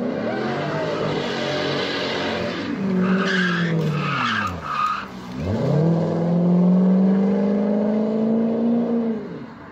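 Chevrolet Corvette's V8 revving hard during a burnout while the rear tires spin and squeal. The engine climbs, drops sharply about five seconds in, then holds a long high rev that falls away near the end.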